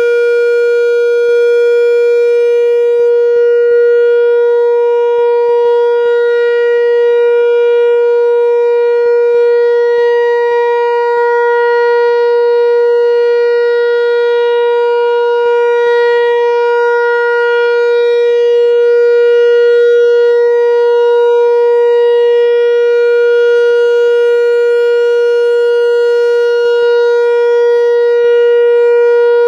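Whelen 4004 tornado warning siren sounding a loud, steady tone that holds one pitch without rising or falling, in a siren test.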